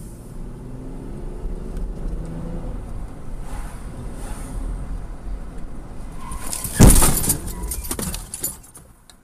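Car engine and road noise heard from inside a car, rising in pitch as it accelerates over the first couple of seconds. About seven seconds in comes a sudden loud bang with a short crunching crackle after it: a rear-end collision with the car in front.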